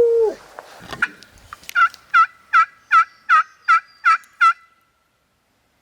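A wild turkey yelping: a run of eight evenly spaced, slightly falling yelps, about three a second, then the sound cuts off.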